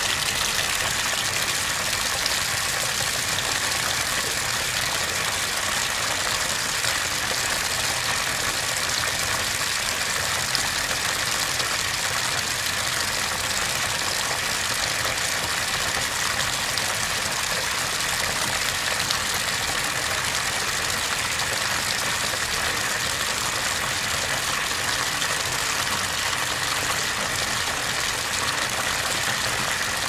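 Bathtub faucet running, a steady stream of water with an even rushing hiss that holds unchanged throughout.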